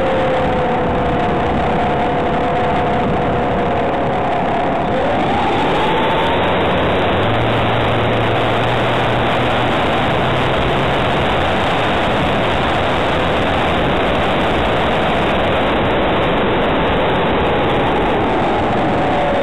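Model aircraft in flight heard from its onboard camera: a loud, steady rush of air over the camera, with the motor's whine underneath. The whine drops in pitch in the first few seconds, rises briefly about five seconds in, and comes back near the end.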